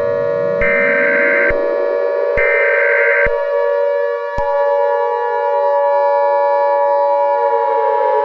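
Emergency alert broadcast signal: two short buzzing data bursts of the alert header over a siren-like tone that rises in pitch. About four seconds in, a steady, higher alert tone comes in and holds.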